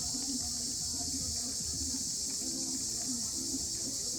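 Steady chorus of insects in the woods, a constant high-pitched buzzing hiss.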